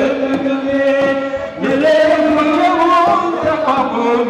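A group of voices singing a chant-like Ethiopian Orthodox hymn (mezmur), holding long notes. A new, louder phrase begins about one and a half seconds in.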